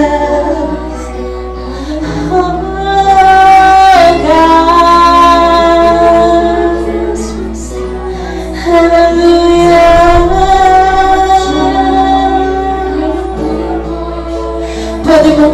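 Worship song: a woman's voice singing long held notes over steady, sustained instrumental accompaniment.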